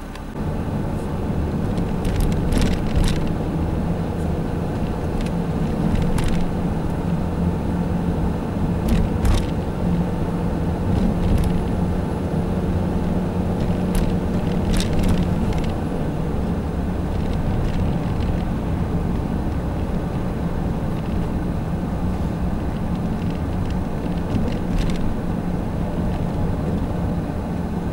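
Vehicle engine and road noise heard from inside the cab while driving: a steady low hum, with a few scattered clicks and rattles.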